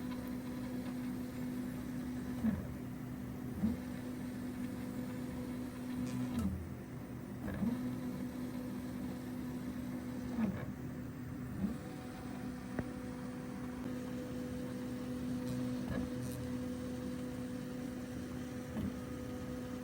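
Original Prusa MK4 3D printer printing its first layer: a steady motor hum with a short pitch glide every second or few as the print head changes speed or direction. It runs fairly smooth, the first-layer noise cut down by retightening the loose hotend screws.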